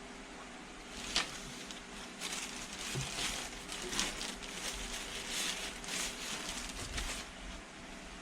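Several seconds of irregular rustling and handling noise, with a sharp click about a second in, over the steady hum of a small USB desk fan running.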